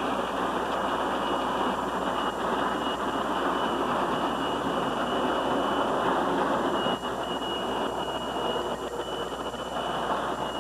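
Electric model train running on its track layout: a steady rolling rumble from the wheels and motor, with a thin high whine that comes and goes.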